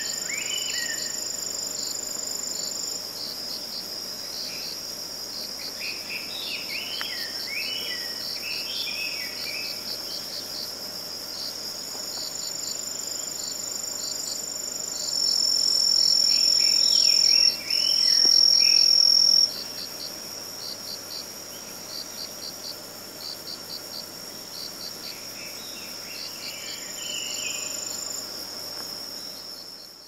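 Autumn forest ambience of crickets and other singing insects: several steady high trills and a regular pulsing chirp, with one trill much louder for a few seconds from about fifteen seconds in. Short, lower chirping calls come in a few times, and the sound fades out at the end.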